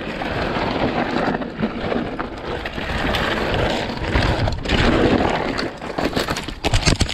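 Vitus Sommet full-suspension mountain bike running fast down a dry, loose dirt trail: steady tyre noise on the sandy soil, with the bike rattling over the bumps. Near the end comes a cluster of sharp knocks as the front wheel washes out on the loose surface and the rider goes down.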